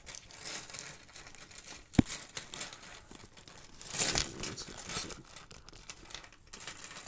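Hands fumbling to pull a keychain USB-C cable out of its holder: rustling and scraping with small clicks, a sharp click about two seconds in, and a louder scuffle around four seconds.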